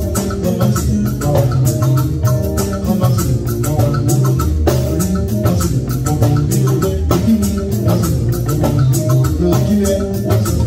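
Upbeat band music with a steady beat and busy hand percussion.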